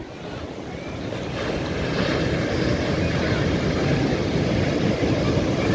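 Sea waves breaking and surf washing up a sandy beach. The rush of the surf builds over the first couple of seconds, then runs on steadily.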